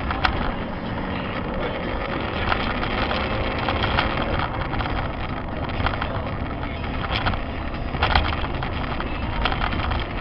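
Steady vehicle road noise with a low rumble, broken by scattered sharp knocks and clicks.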